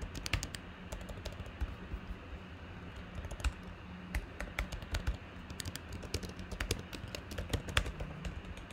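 Computer keyboard being typed on: quick, irregular key clicks.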